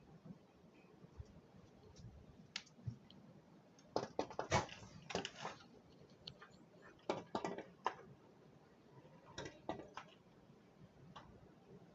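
A bird pecking: bouts of quick, sharp taps about four, seven and nine and a half seconds in, with a few single taps between them.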